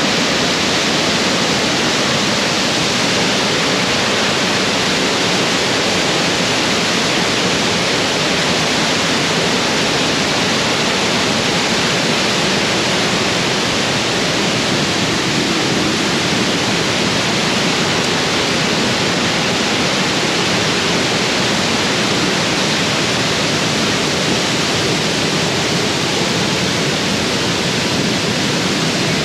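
Waterfall in full flow with the monsoon rains: a loud, steady rush of falling water.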